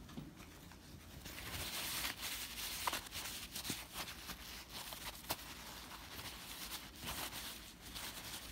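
Handling noise from working on a disassembled speedometer on the bench: rubbing and scraping, loudest a couple of seconds in, with a few small sharp clicks of parts knocking together.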